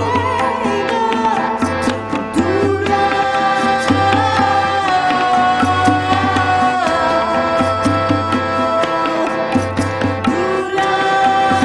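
Live Indian-flavoured world-beat music: hand drums keep a steady rhythm under a harmonium and long held melody notes.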